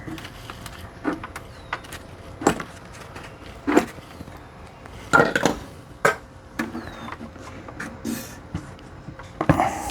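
Sunko 709A spot welder firing on nickel strip over 18650 cells: sharp snaps at irregular intervals, a few coming close together.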